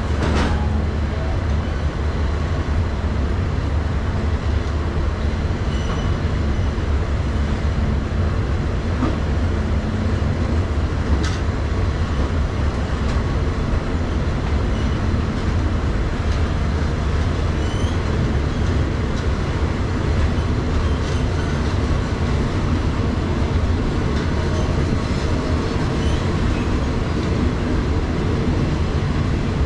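Passenger train running, with a steady low rumble.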